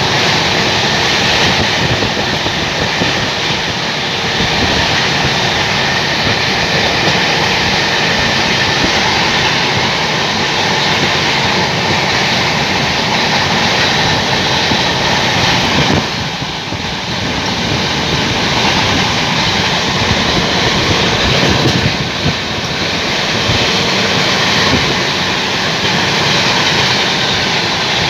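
A moving train heard from on board: a steady loud rumble with the fast clatter of wheels on the rails. It dips briefly about sixteen seconds in and again a little after twenty-two seconds.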